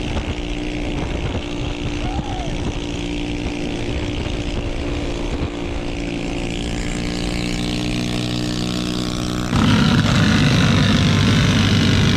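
Minibike's small engine running at a steady speed, then about three quarters of the way in it suddenly gets louder and rougher as the throttle is opened.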